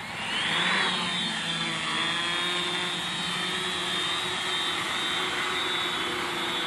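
450-size quadcopter's four brushless motors (750 kV) spinning 10-inch propellers spool up with a rising whine as it lifts off, then hold a steady pitch as it hovers.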